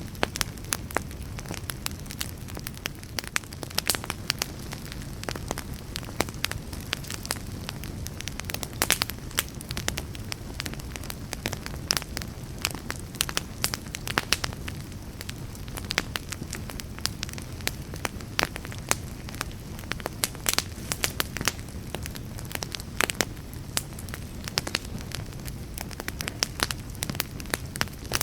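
Wood fire burning, with a steady low rumble and a constant run of irregular sharp crackles and pops.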